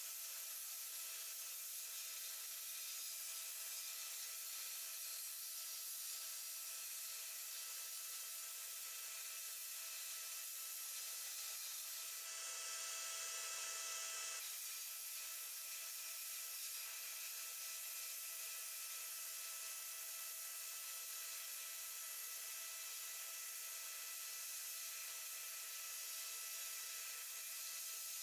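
Sandblasting cabinet's blast gun firing abrasive grit at a Tonka toy truck's steel cab to strip its paint: a steady hiss that swells briefly a little under halfway through.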